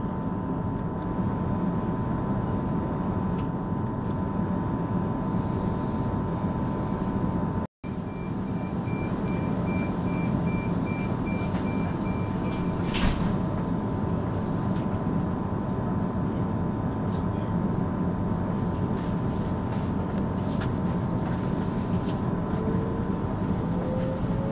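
The inside of a standing electric passenger train: a steady hum from its onboard equipment with a constant tone. About a third of the way in, a run of evenly spaced beeps, which sound like a door-closing warning, ends in a sharp thud. Near the end a whine rises in pitch as the train starts to pull away.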